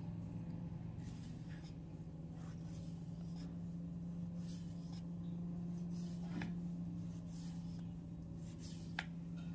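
Sharp kitchen knife scoring raw squid on a wooden cutting board: faint, irregular scratching strokes of the blade through the flesh, with a sharper tick near the end, over a steady low hum.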